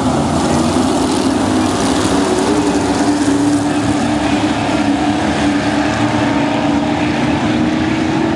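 Dirt-track stock race cars' engines running together on the oval, a steady loud drone with a held engine tone and no clear revving or gear changes.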